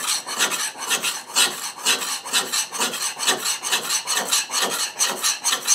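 Steel plane iron being freehand honed on an oiled oil stone: quick, even back-and-forth scraping strokes of the bevel against the abrasive.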